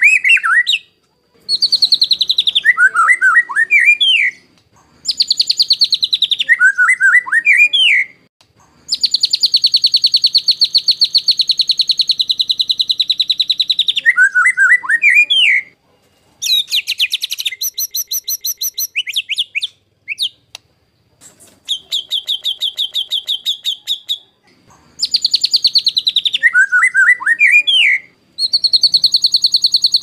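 White-rumped shama (murai batu) singing in harsh, rapid-fire phrases: fast rattling trills of quickly repeated notes alternate with lower slurred whistles that swoop up and down. Each phrase lasts two to four seconds with a brief pause between, and several phrases come back in the same shape.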